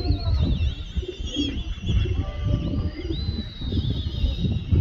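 Flocks of domestic pigeons over the rooftops, with high, warbling whistle-like calls over a steady low rumble of wind on the microphone.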